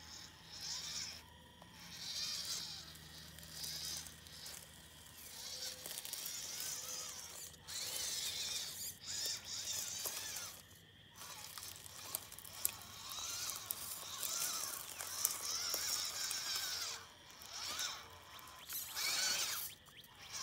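Small electric motor and gearbox of a WPL C14 RC crawler whining as it crawls over bumpy ground in first gear, the whine rising and falling with the throttle and cutting out briefly several times.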